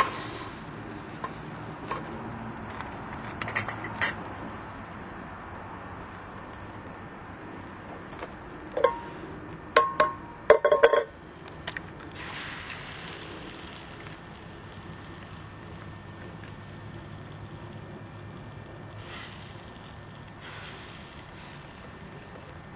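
Small wood gas camp stove burning with a steady hiss. Several sharp metallic clinks of a steel mug and pan being handled come about halfway through.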